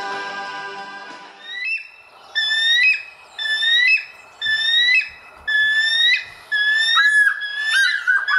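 Music fades out over the first second or so; then a bald eagle's high piping calls repeat about once a second, each rising and then breaking off, crowding closer together near the end.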